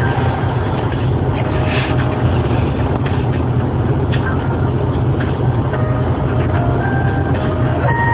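Steady, loud rumbling background noise, strongest in the low range, with faint short tones at shifting pitches coming and going over it.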